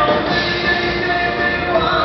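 Live stage band playing a doo-wop rock and roll number, with long held notes.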